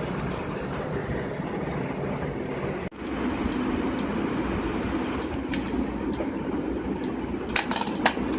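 WD hard drive clicking repeatedly over a steady whirring hum: after a brief cut about three seconds in, sharp clicks come about twice a second, a few louder ones near the end. Repeated clicking like this is the sign of a failing drive.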